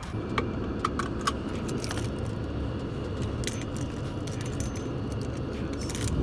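Keys and key rings jingling against each other as a hand handles the bunch hanging from the ignition of a 2011 Audi A6, a cluster of clinks in the first two seconds and a few more later. Under it, the steady low hum of the car's engine idling.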